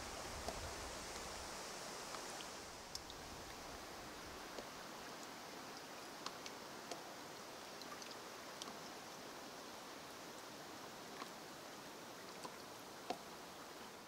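Small waves lapping at a rocky lakeshore: a steady soft wash with many small splashes and clicks scattered through it. Wind rumbles on the microphone for the first second or two.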